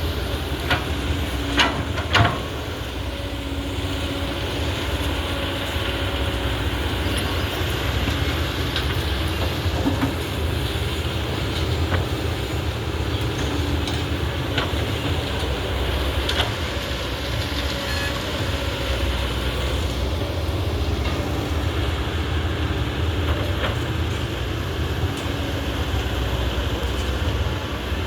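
Hydraulic excavator's diesel engine running steadily, with a couple of sharp knocks about two seconds in.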